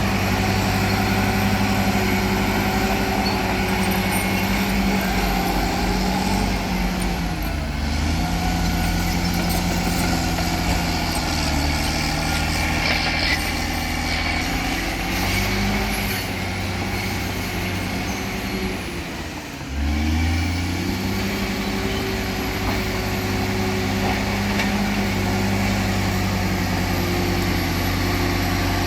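Heavy diesel engines of an excavator and a crawler bulldozer working, running steadily. Their pitch sags under load about seven seconds in and again near twenty seconds, then picks back up.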